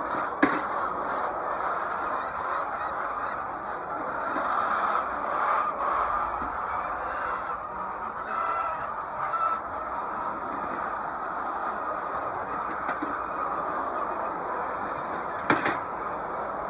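A large flock of laying hens in a poultry house, a continuous chorus of clucking and calling. Two short sharp knocks stand out, one near the start and one near the end.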